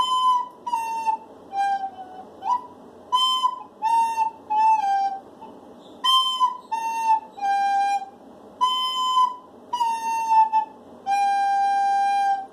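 Plastic soprano recorder playing a simple tune: four short phrases of three notes stepping down in pitch, with gaps between, the last phrase ending on a long held low note.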